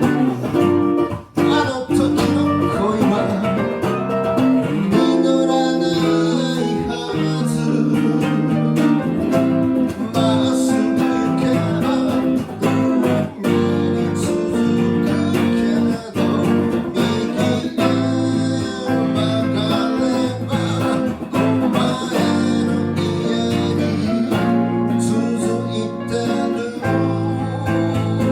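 Live band music led by guitars, with plucked and strummed acoustic guitar playing continuously.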